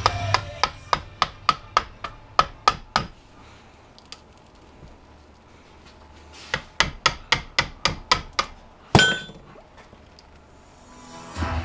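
Hammer tapping a tool through the core of a small charger transformer to drive out its copper windings. There are two runs of quick, sharp strikes, four or five a second, with a pause between, and then one louder metallic hit that rings briefly near the end.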